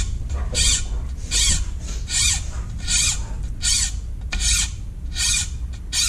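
Nicholson slim taper triangle file rasping in about eight even back-and-forth strokes across the steel saw blade of a Victorinox Hiker pocket knife, cutting a new saw tooth.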